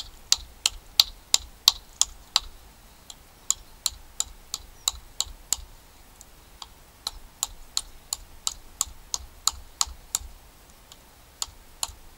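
Condor Bushlore bushcraft knife chopping into an upright wooden stick on a chopping block: a fast run of sharp knocks, about three a second, broken by brief pauses about halfway through and again near the end.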